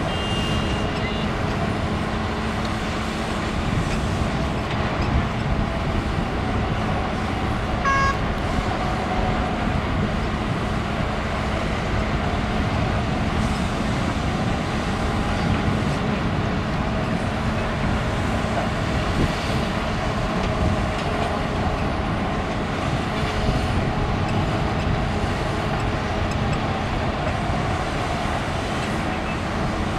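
Heavy diesel machinery running steadily: a crawler excavator's engine and hydraulics working under load as it digs and loads dirt into a dump truck, with the engines of trucks idling around it. A short high beep sounds about eight seconds in.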